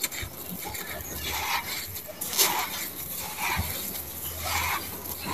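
Handfuls of dry, gritty sand-cement mix being squeezed, crumbled and dropped back onto a pile, a grainy crunch and patter about once a second, with one sharper, louder crunch about two and a half seconds in.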